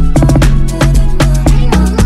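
Afrobeats song playing, with a steady beat and heavy bass.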